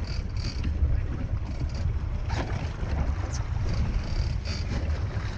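A boat's engine running with a steady low rumble, with wind buffeting the microphone.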